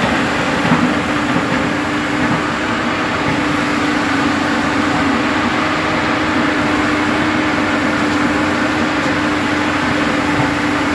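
Tata Hitachi crawler excavator's diesel engine running steadily while the boom and bucket work, a loud continuous noise with a constant low hum through it.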